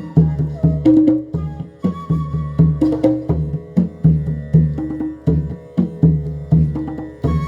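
Instrumental Indian classical music: tabla playing a steady rhythm of about three strokes a second under a held, gliding melody line.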